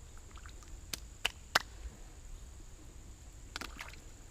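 Bluegill taking bread at the pond surface: several short, sharp splashes and pops, three in quick succession about a second in and a couple more near the end. A steady high insect hum runs underneath.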